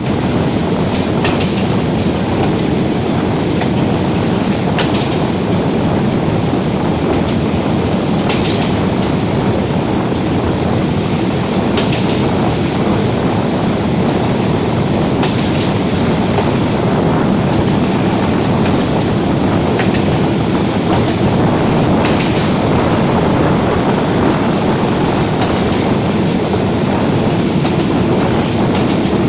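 Metre-gauge commuter train running along the track: a steady rumble with a faint click every three to four seconds.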